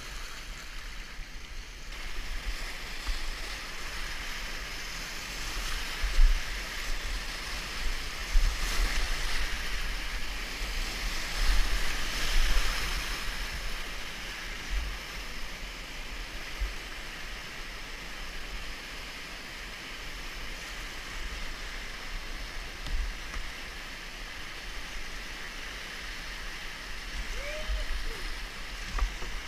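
Whitewater rapid rushing around a river kayak as it runs the rapid, a steady noise of churning water with louder surges about six, eight and twelve seconds in.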